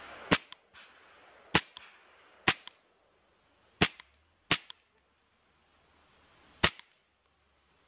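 Beretta M92 A1 CO2 airsoft pistol fired single shots, six sharp pops at uneven gaps of about one to two seconds.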